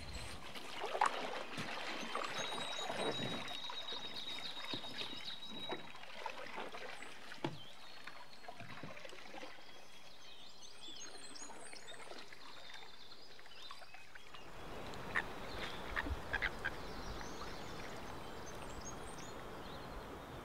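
Quiet lakeside ambience with scattered bird calls and light knocks. About two-thirds through it changes to a steadier wash of sound, with a few sharp calls or splashes soon after.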